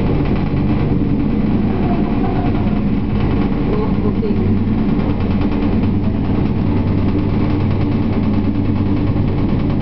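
Bell 214ST twin-turbine helicopter hovering while it lifts a load on a longline, the main rotor beating in a fast, even pulse over a steady low hum and turbine noise.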